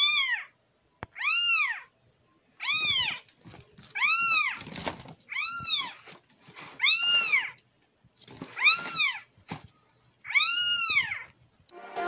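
Recorded kitten meows played from a phone inside a woven plastic bag: the same rising-and-falling meow repeats about every one and a half seconds, eight times, over a thin steady high tone. Music cuts in right at the end.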